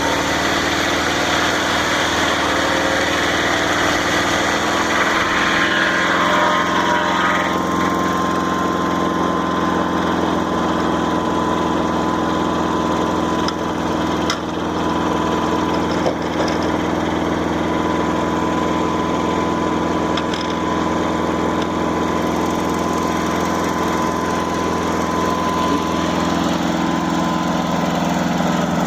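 Gasoline engine of a Mobile Dimension sawmill running steadily. A hiss over it dies away about seven seconds in, after which a thin steady whine carries on, with a few light knocks in the middle.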